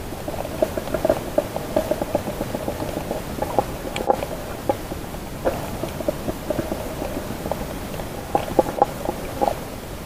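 Muffled underwater sound picked up by a submerged camera: water moving around it, with a dense run of irregular clicks and crackles, a few louder ones near the end.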